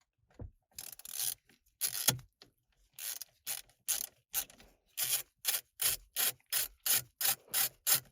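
Hand ratchet clicking as it backs out the small Torx bolts holding the steering-wheel trim. Scattered clicks at first, then an even run of about three clicks a second over the last three seconds.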